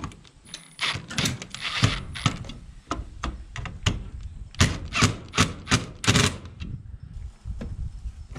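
Milwaukee Fuel cordless impact driver driving screws into a latch plate on a camper shell door frame, in several short bursts of rapid hammering rattle that stop after about six seconds.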